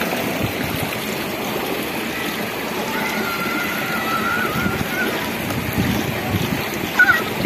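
Steady rushing of water flowing down a water slide into its splash pool, with wind buffeting the microphone. A short call from a voice near the end.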